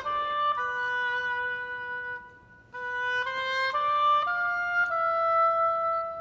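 Background music: a solo wind instrument playing a slow melody of held notes, in two phrases with a brief pause about two seconds in, ending on a long held note.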